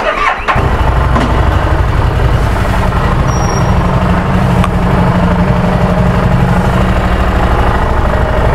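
Harley-Davidson Street Rod 750's V-twin engine starting about half a second in, then running steadily and loudly.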